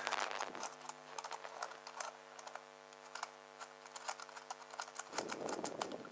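Small irregular metal clicks and taps as a narrow screwdriver works the main jet and emulsion tube out of a small engine carburettor. A steady low hum runs underneath, and a short scraping rustle comes about five seconds in.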